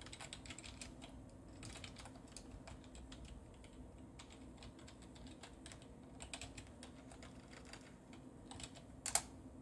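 Typing on a computer keyboard: a run of faint, irregular key clicks, with one louder keystroke near the end.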